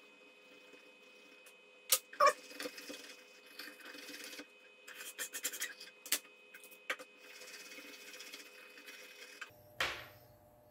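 Scrubbing and rubbing of a small cleaning pad on the metal base of a graphics-card heatsink, wiping off the old thermal paste, in two stretches of scratchy noise. Sharp clicks and knocks come in between as tools are handled on the table, the loudest a pair about two seconds in.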